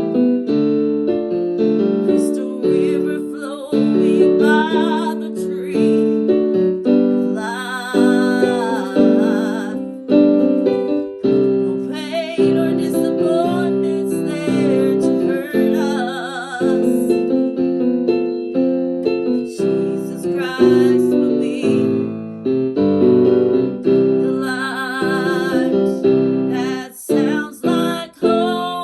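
Piano music: sustained chords with a slow melody, and a wavering higher melody line over it at times.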